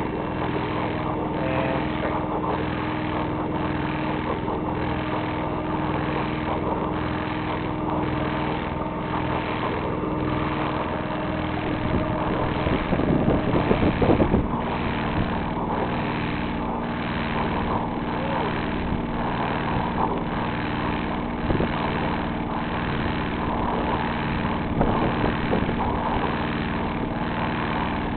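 A sailboat's auxiliary engine running steadily under way; its note drops slightly about halfway through, just after a louder, rougher stretch lasting a second or two.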